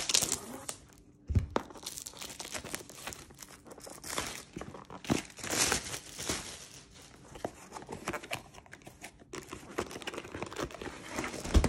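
Scissors cutting into a plastic shrink-wrap sleeve, then the plastic crinkling and tearing in irregular rustles as it is pulled off a cardboard kit box. There is a thump about a second in.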